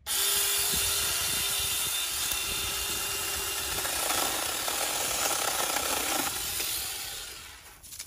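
TOMYVIC 6-inch cordless battery mini electric chainsaw starting abruptly and running with a steady whine, then cutting through a small tree branch about four seconds in, the whine giving way to a rougher sawing sound. It winds down near the end once the branch is cut through.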